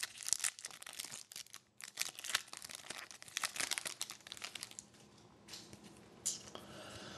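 A hockey trading card pack's wrapper being torn open and crinkled in the hands, a busy crackle that dies away about five seconds in, with one more short rustle near the end.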